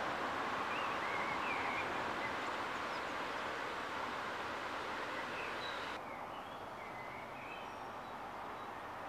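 Steady outdoor rushing ambience with small birds chirping over it, a few short calls early on and a few more later. About two thirds through, the brighter part of the hiss drops away suddenly and the ambience turns duller.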